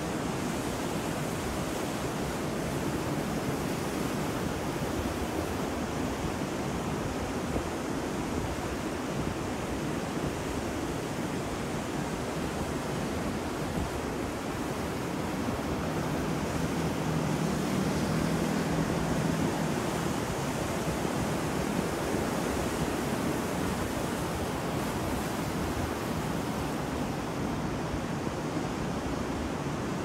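Ocean surf on a rough sea: a continuous rush of breaking waves with no separate crashes, swelling a little louder about halfway through.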